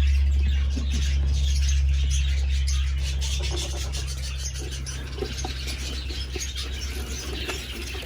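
Many small cage birds chirping together in an aviary, over a low rumble that is loudest at first and fades, with a few small clicks in the second half.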